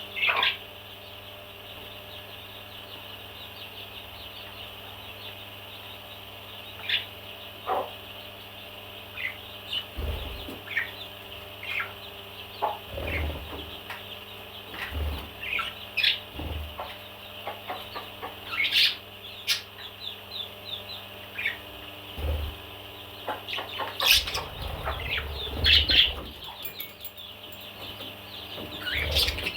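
A parrot giving short, sharp chirps and squawks at irregular intervals over a steady background hum. From about a third of the way in there are also dull low thumps, which come most thickly near the end.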